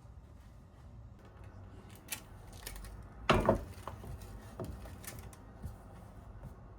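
A few light knocks and clicks of objects being handled, with one louder clatter a little past the middle.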